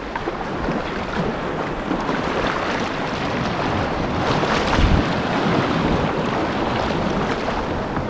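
Rushing whitewater of a river rapid around a moving canoe, a steady noise with wind buffeting the microphone. A low thump comes about five seconds in.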